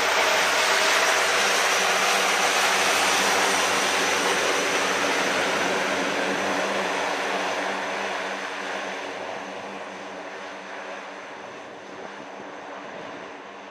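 A Royal Australian Air Force C-130J Hercules's four Rolls-Royce AE 2100 turboprop engines running, with a steady propeller drone and hum over a broad roar. The sound fades over the second half as the aircraft moves away.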